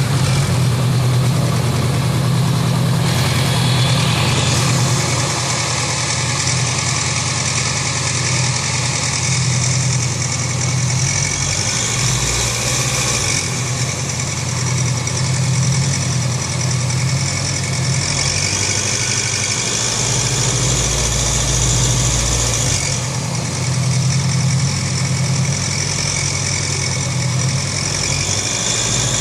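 Honda CB500X parallel-twin engine running steadily, with a mechanical clatter from the top of the engine that sounds as if something were knocking. The cause is a loose breather hose and a loose bolt on top of the cylinder head, which let the engine's running noise out through the breather hole; it is not a serious fault.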